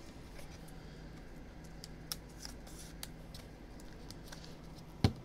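Light clicks and rustles of a trading card and a rigid plastic card holder being handled, with one sharper click near the end.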